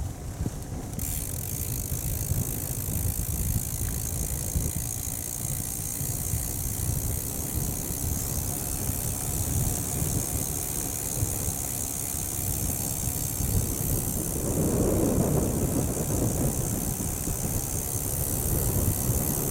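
Wind noise buffeting the microphone of a camera on a moving bicycle, with tyre and bike noise on tarmac. A steady high hiss joins about a second in, and the noise swells for a few seconds past the middle.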